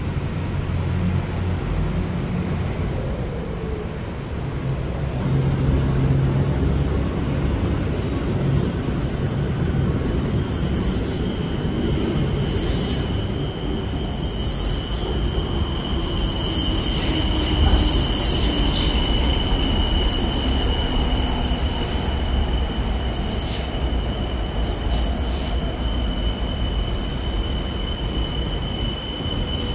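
BTS Skytrain metro train running on the rails with a steady rumble. About a third of the way in a steady high-pitched wheel squeal sets in and holds, and short high hisses come every second or two through the middle of the stretch.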